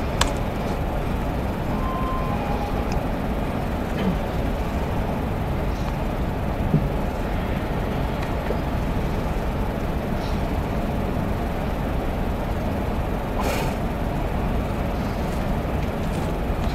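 Steady room noise, a low rumble with hiss, with a few faint clicks.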